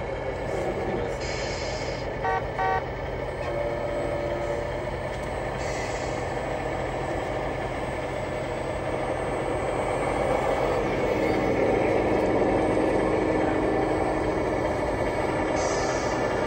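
Truck sounds over a steady background din: two short horn toots about two seconds in, and a few brief hisses like air-brake releases.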